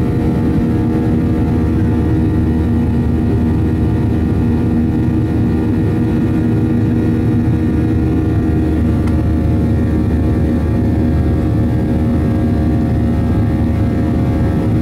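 Boeing 737-800 cabin noise during the climb after takeoff. Its CFM56-7B turbofan engines run at a steady loud rumble, with several steady humming tones over it.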